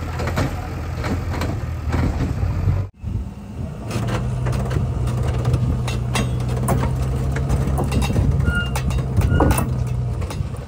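A JCB 3DX backhoe loader's diesel engine idling; after a brief break about three seconds in, a diesel engine runs steadily close beneath a rail vehicle on the track, with scattered small clicks and knocks and a couple of short high squeaks near the end.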